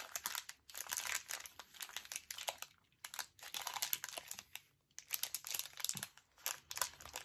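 Plastic bag of M&M's pretzel candies crinkling as it is handled and opened, in bursts with a couple of short pauses.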